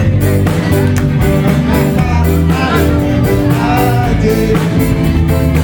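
Loud amplified song with a sung vocal over a steady beat and band accompaniment.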